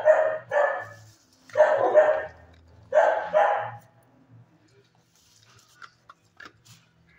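A dog barking, in four loud bursts over the first four seconds, followed by a few faint clicks and taps.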